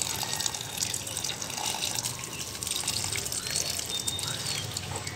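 Water being poured from a small metal pot onto a potted tulsi plant, splashing and dribbling steadily into the leaves and soil.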